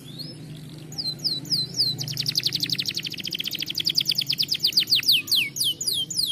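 Domestic canary singing. A few downward-sweeping whistled notes lead into a long, rapid trill of fast repeated notes, which slows into separate falling notes near the end.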